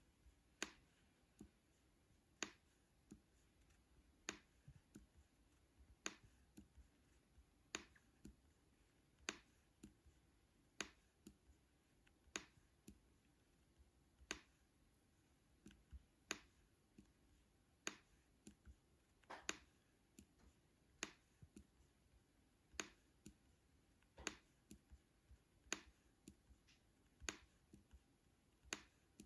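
Faint, single clicks on a laptop, about one every one and a half to two seconds, each advancing the next word card on screen.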